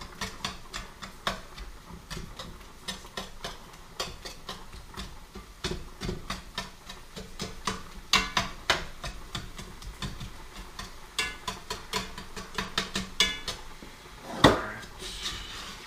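A cooking utensil clicking and scraping irregularly against a skillet as ground beef is stirred and broken up while browning, with one louder knock near the end.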